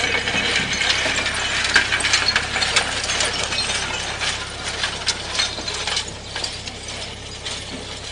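Komplet DS 1020 trommel screen running, with stones and soil clattering in the spinning screen drum: a dense stream of sharp rattling clicks that thins out and grows quieter after about six seconds.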